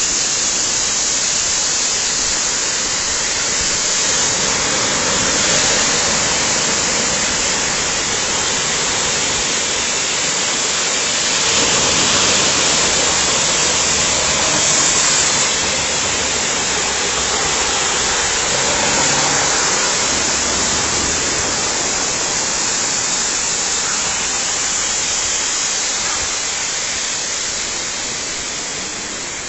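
Waterfall rushing: a steady, loud wash of falling water, with a deeper rumble added from about a third of the way in until about two-thirds through.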